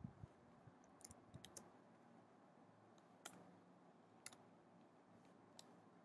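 Faint computer-keyboard keystrokes, scattered and irregular: a short run of clicks about a second in, then single clicks every second or so, over quiet room hiss.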